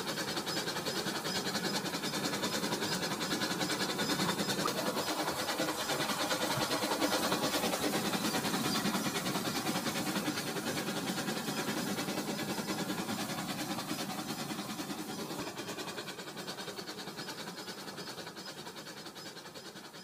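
Battery-powered Rail King toy train running along its track: a steady whir from its small motor and gears with rapid clicking from the wheels on the rails. It is loudest about a third of the way in, then fades steadily as the train moves away.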